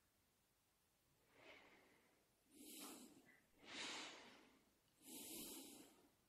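Near silence with a few soft, faint breaths close to the microphone, each about half a second long, as the meditation teacher pauses between instructions.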